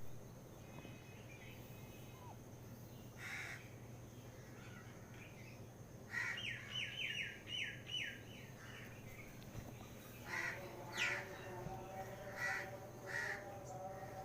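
Pet parrot calling: a single call about three seconds in, a quick run of about seven chirping notes around six to eight seconds, then several short calls near the end.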